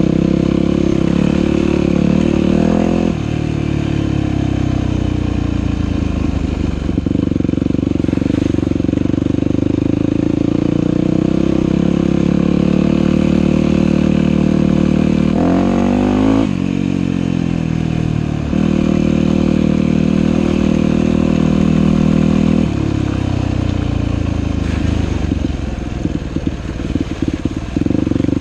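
Dirt bike engine running under changing throttle as it is ridden along a trail, its pitch climbing and dropping several times with a sharp rev about halfway through. Near the end it goes choppy and uneven as the throttle is rolled off.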